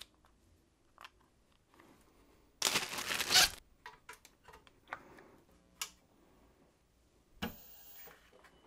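Hands working cables and connectors into a small CNC router's control box: a few small clicks, a loud rustle lasting about a second around three seconds in, and a shorter rustle near the end, after which a faint high steady tone comes in.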